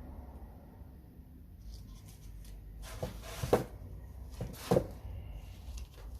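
Hands working on a tablet's parts during reassembly: a few light taps, then two sharp clicks about a second apart near the middle, over a low steady hum.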